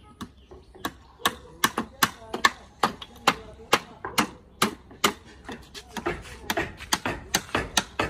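Hand hammer striking wooden boards: a series of sharp knocks, two to three a second and somewhat uneven, some blows much louder than others.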